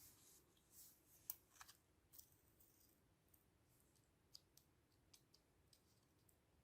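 Near silence with faint scattered clicks and a few soft paper rustles from paper being handled, the sharpest click about a second in.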